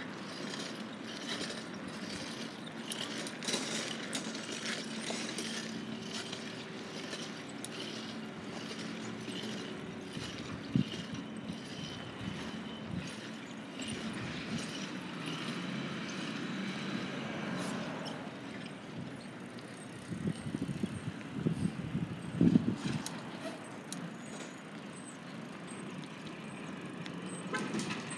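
Garbage truck engine running steadily down the street, a low hum under outdoor street noise, with a cluster of low bumps about twenty seconds in.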